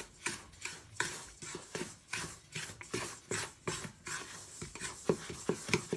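Wooden spatula stirring dry semolina and flour in a stainless steel mixing bowl: a steady run of short scraping strokes against the metal, two or three a second.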